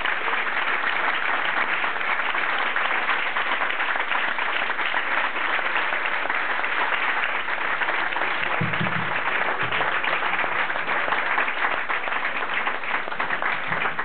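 Audience applauding, a steady, even clapping from a small crowd.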